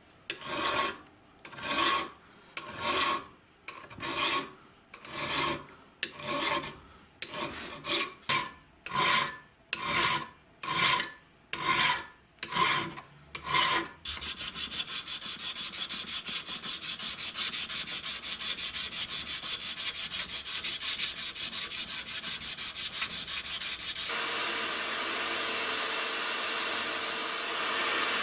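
Steel hand file rasping across the rusty steel end knob of a mini vise's handle, about one stroke a second, turning to quicker, even strokes about halfway through. Near the end a small motor-driven polishing wheel starts running with a steady high whine as the knob is held against it.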